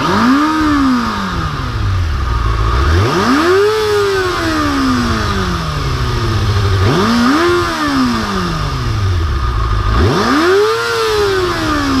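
Kawasaki Ninja 636 inline-four on its stock exhaust being revved while standing, warmed up: four throttle blips, each rising sharply and falling back to idle over two to three seconds. Super loud.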